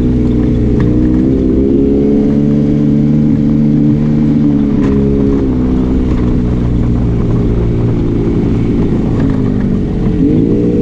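Arctic Cat Wildcat Trail 700 side-by-side's engine running under way: its pitch rises about a second in, drops about halfway through and holds lower, then dips once more near the end before picking back up.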